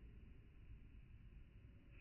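Near silence: faint steady background hiss and low rumble, with no match strikes or other distinct sounds.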